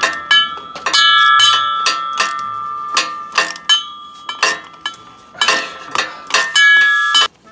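Irregular metallic clanks, about two a second, each leaving a short bell-like ring. A swivel-head flat ratchet is knocking against metal while it works a propeller-shaft flange nut under the car. The clanking stops suddenly near the end.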